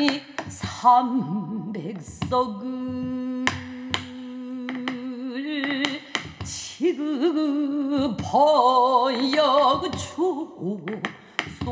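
A woman singing pansori in slow, long-held notes with a wide, wavering vibrato, accompanied by a few sharp strokes on a buk barrel drum.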